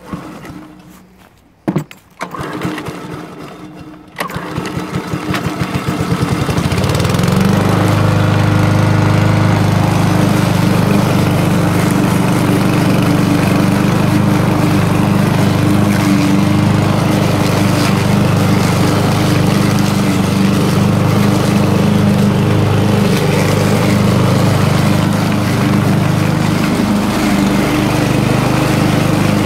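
The Honda HRB 475 lawn mower's GXV140 single-cylinder engine starts about four seconds in and quickly runs up to full speed. It then runs steadily and loudly under load as the mower cuts grass.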